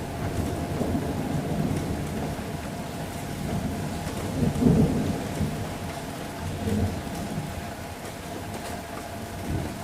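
Steady rain with thunder rumbling low, swelling loudest about halfway through and rolling on in smaller rumbles.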